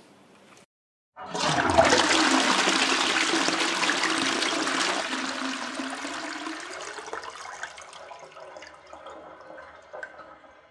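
Toilet flushing: a sudden loud rush of water starts about a second in and slowly fades away over several seconds.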